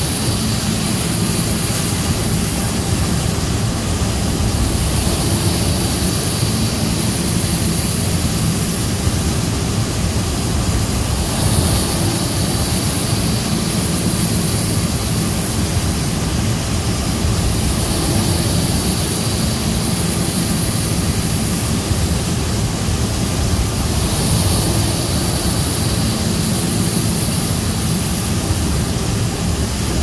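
Steady, loud machine noise: a low engine drone with a constant hiss over it that swells and eases every few seconds.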